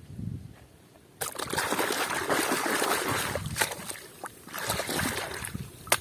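Water running and splashing over a muddy plastic toy as it is rinsed clean, starting about a second in and coming in spells, with a sharp click just before the end.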